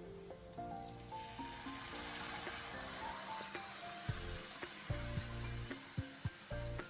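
Hot ghee-and-spice tadka sizzling as boiled dal is poured into it, the sizzle swelling about a second in, under background music.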